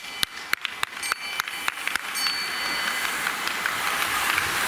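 Race lap bell rung rapidly by hand, about five clanging strikes a second, signalling a prime lap. The ringing stops about two seconds in, and a steady rushing noise grows as the bunch passes.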